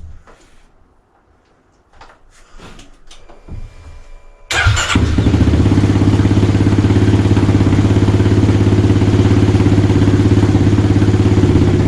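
Kawasaki KLX300R single-cylinder engine breathing through a newly fitted Pro Circuit T6 full exhaust: it starts suddenly about four and a half seconds in and settles into a steady idle. Before that come only a few faint handling sounds.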